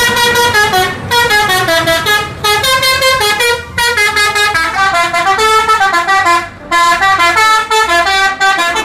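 Tour bus's multi-note musical horn of the Indonesian 'telolet' kind, playing quick stepping tunes, loud, in several runs with brief gaps between them.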